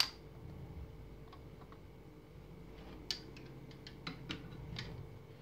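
Light plastic clicks and taps from a GoPro Hero 6 camera and its clear plastic Super Suit housing being handled, with a sharper click at the very start and scattered faint ticks after it.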